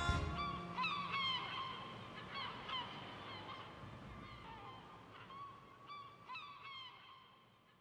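A song fading out: a flute plays short phrases of high notes that scoop up and down over the last of the band, dying away towards the end.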